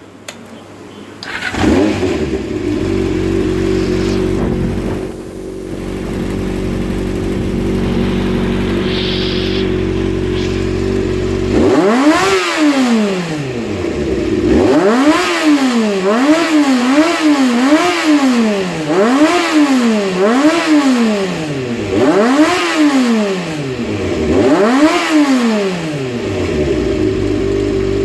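Honda CBX400F's inline four-cylinder engine, running on freshly repaired and adjusted carburettors, starts and settles into a steady idle, then is revved up and down about eight times in quick blips before dropping back to idle near the end.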